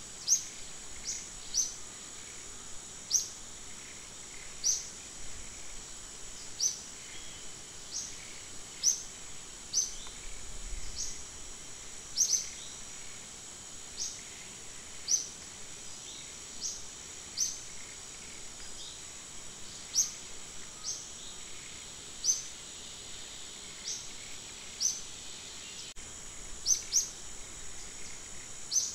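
Forest ambience: a steady high insect drone, with short, sharp rising chirps repeating irregularly about once a second.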